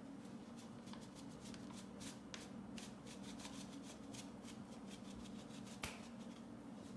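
Quick, irregular light clicks and rustles of raw food being handled by hand, with one louder click about six seconds in, over a steady low hum.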